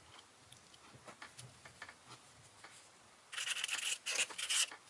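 Marker writing on a notepad page: a run of scratchy strokes starting about three seconds in and lasting over a second, after a few faint taps and rustles.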